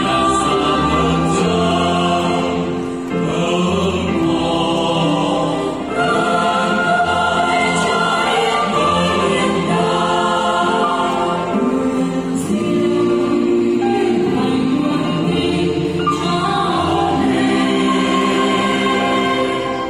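Church choir singing a Vietnamese Catholic hymn to Mary, voices together in long held phrases that break and restart every few seconds.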